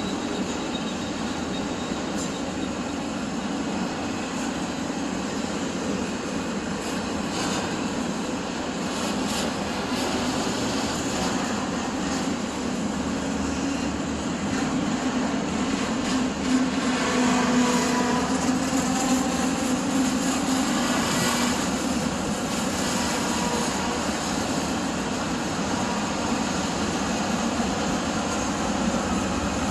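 Norfolk Southern freight train rolling past with a steady rumble of railcars on the rails. A pitched tone rises over the rumble for several seconds about halfway through.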